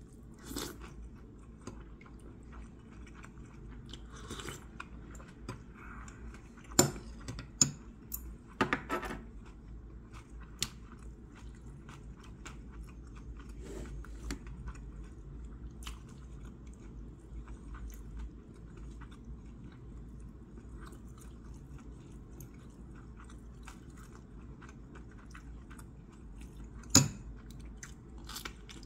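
A person chewing and eating, with a few sharp clinks of a metal spoon and chopsticks against the dishes, the loudest near the end.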